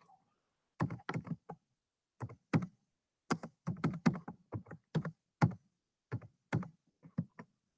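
Typing on a computer keyboard: irregular clusters of sharp key clicks with short pauses between them, as a command is entered at a terminal.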